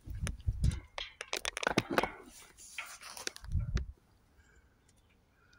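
Someone climbing over a metal bar gate: a quick run of clanks, knocks and scrapes, with two heavy thumps near the start and about three and a half seconds in. It goes quiet at about four seconds.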